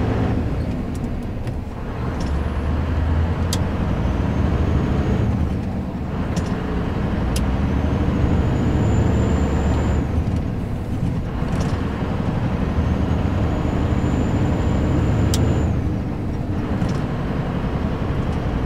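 Scania R560's V8 diesel pulling hard with an empty trailer, revs climbing in each gear and dropping back at four manual gear changes. A faint whistle climbs with the revs in each gear.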